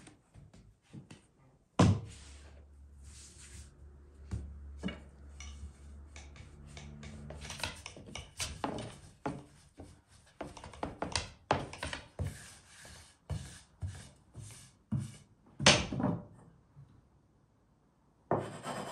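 A long, thin wooden rolling pin rolling out dough on a floured wooden board: repeated short scraping and knocking strokes of wood on wood. There is a loud wooden thunk about two seconds in and another near the end of the rolling.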